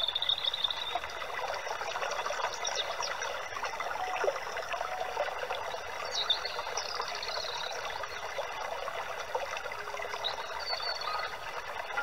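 Water trickling steadily, with birds calling over it: short high whistles and chirps every few seconds.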